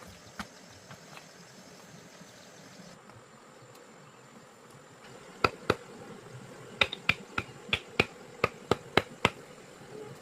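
About a dozen sharp clicks or taps in the second half, irregularly spaced, over a faint steady background hiss.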